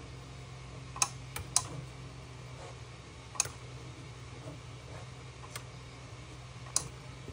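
Battery spot welder firing its pulses through handheld probes, tacking a tin strip onto a lithium-ion cell terminal: about six sharp clicks a second or two apart, some louder than others, over a steady low hum.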